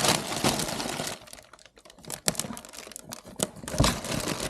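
Packaging being handled during unboxing: rustling and crinkling, then scattered sharp clicks and a heavier thump near the end.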